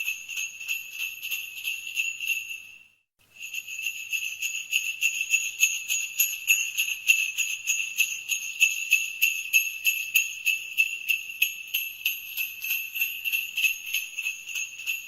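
Sleigh bells jingling in a steady shaken rhythm, about four shakes a second. The sound cuts out for a moment about three seconds in, then starts again.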